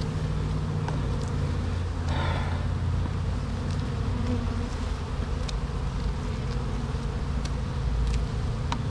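A honeybee colony buzzing steadily in an open hive, with a few light clicks.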